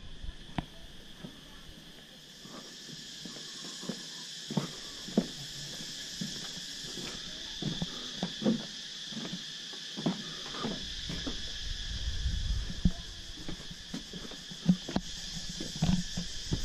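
Footsteps on stone paving, a short knock every half second or so, over a steady high buzzing drone of insects.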